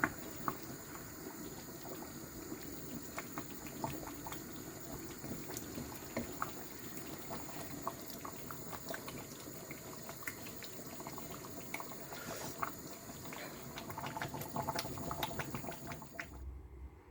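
Pot of black soup with banga (palm-nut soup) boiling: steady bubbling with many small irregular pops, stopping abruptly near the end.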